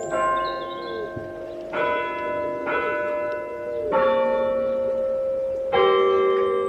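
Church bells ringing. A new bell strikes about every one to two seconds, and each note rings on under the next.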